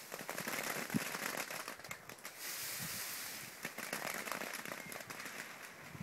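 Plastic ground sheeting rustling and crackling as it is moved and handled, with irregular clicks over a swelling and fading hiss and a soft knock about a second in.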